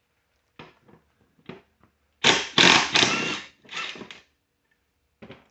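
Work on the lawnmower's blade mount: a few light clicks, then a loud noisy burst of about a second and a half, followed by a shorter, weaker one.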